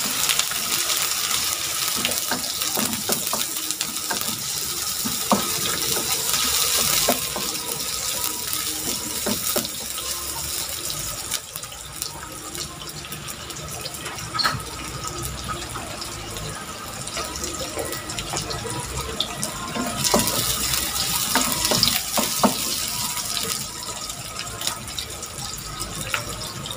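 Sliced onions sizzling in hot oil in a wok, with scattered taps and scrapes of a wooden spatula stirring them. The sizzle is louder for the first seven seconds or so and again about twenty seconds in.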